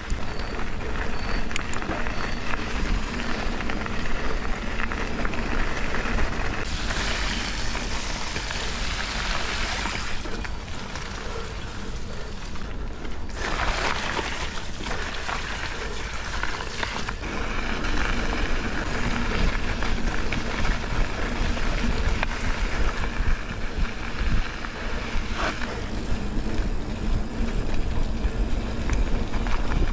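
Wind and riding noise on a GoPro's microphone during a mountain bike ride: a continuous rushing noise with a strong low rumble.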